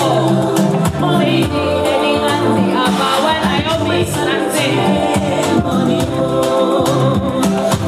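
A DJ playing a song with singing over a steady percussion beat.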